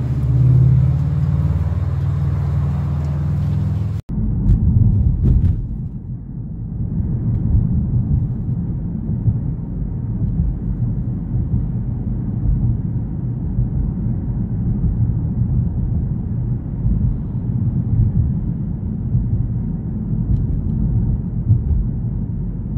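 A steady low hum from a street scene, then an abrupt change about four seconds in to the low, fluctuating rumble of road and engine noise heard inside a moving car.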